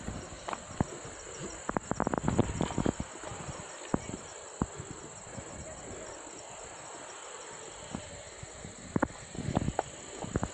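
Steady high-pitched insect chorus, with footsteps on loose stones and rock, in a cluster about two seconds in and again near the end.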